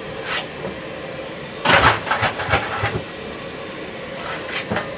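A fireman's coal shovel scraping and clanking as coal is dug and thrown into a steam locomotive's firebox: a cluster of loud strokes a little under two seconds in, and a few weaker ones near the end, over a steady hiss and hum in the cab.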